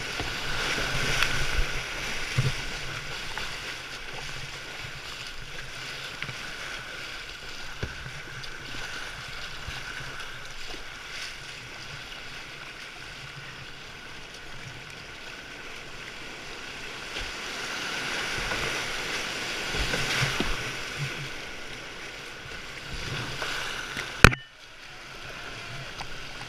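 Rushing river water and kayak paddle strokes splashing as the kayak runs a rapid and the flatter water after it; the water noise swells twice. A single sharp knock near the end.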